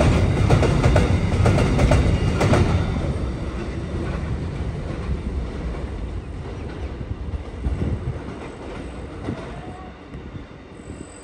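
Container freight train wagons rumbling and clacking over the rails as the last wagons pass close by, loud for the first few seconds, then fading steadily as the train rolls away.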